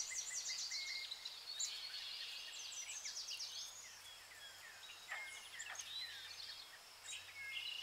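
Faint birdsong: birds chirping and trilling in quick, high sweeps.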